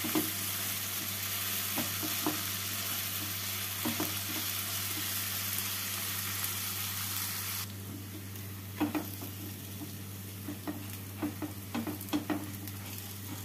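Sliced onions sizzling in hot ghee and oil in a nonstick kadai while they fry to a light brown. A silicone spatula stirs them, with short scrapes and taps against the pan now and then. The sizzle drops suddenly about eight seconds in and carries on quieter.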